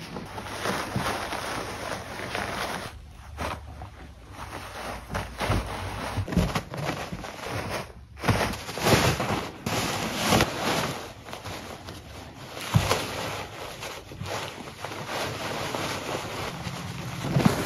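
Toilet paper rustling and crinkling as two kittens wrestle and tumble in it, with irregular scuffles and a few thumps of their bodies on the carpet.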